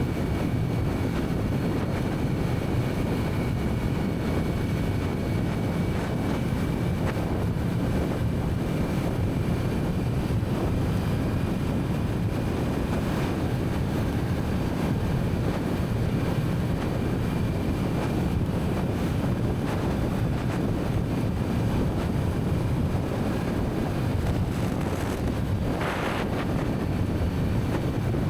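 Kawasaki Z900's inline-four engine with its stock exhaust, running at a steady cruise, mixed with wind noise on the microphone.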